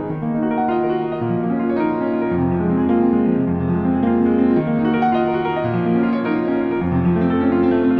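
Background music: a slow piano piece with sustained notes over a changing bass line.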